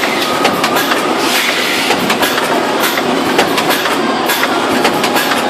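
Automatic shrink-wrapping line, a film cutting-sealing machine and heat-shrink tunnel, running: a steady rushing noise with frequent sharp clicks and clatter.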